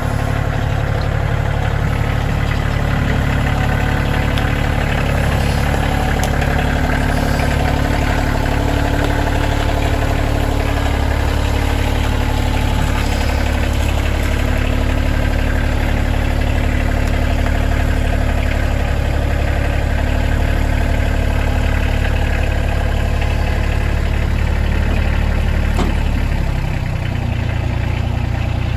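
Kioti CK2610 compact tractor's three-cylinder diesel engine running steadily and loud, close to the microphone, while the tractor moves a log splitter hitched to its loader bucket. The engine note drops near the end.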